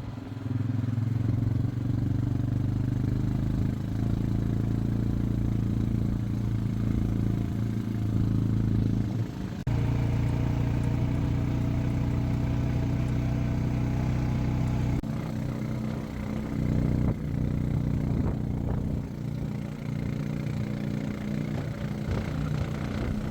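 A vehicle engine running at a steady speed, a constant low hum that shifts abruptly about ten seconds in and again about fifteen seconds in.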